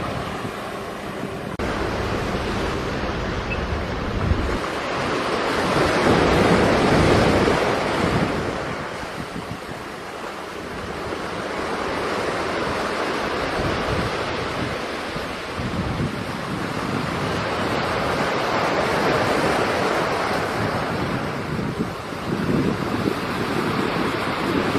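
Wind buffeting the microphone over the wash of sea waves, a rushing noise that swells and eases every several seconds.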